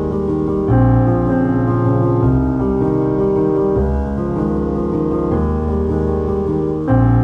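Background piano music, with sustained chords changing about every second and a half.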